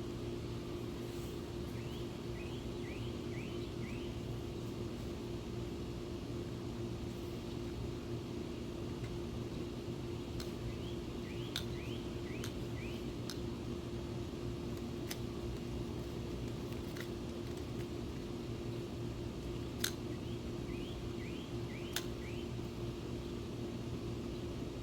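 A bird repeats a short phrase of four or five quick rising chirps three times, over a steady low hum. A few sharp clicks are scattered through the middle and latter part.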